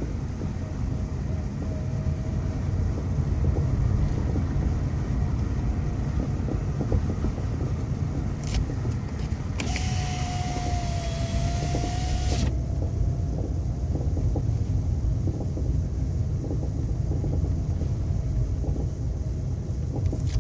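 Skoda Fabia driving over the road, heard from the cabin: a steady rumble of road noise with irregular dull knocks from a worn-out anti-roll bar link. About ten seconds in, a whine with a hiss runs for a couple of seconds.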